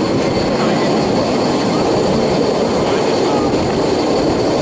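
Narrow-gauge steam train running, heard from an open platform on one of its coaches: a loud, steady rumble of the moving train with no distinct beat.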